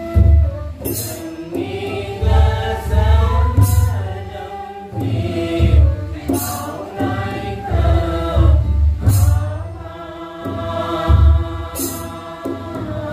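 A group of worshippers singing a devotional prayer chant together, over a low steady beat, with a sharp crash-like percussion stroke about every two and a half seconds.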